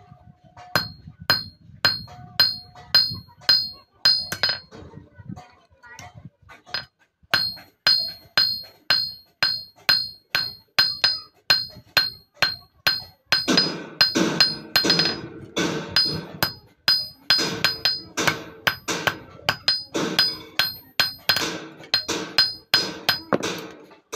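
Hand hammer striking an unheated steel sickle blade on a railway-rail anvil: runs of sharp ringing blows, often about three a second, with a short pause near the quarter mark. Cold forging shapes the blade without a forge. Music plays underneath from about halfway.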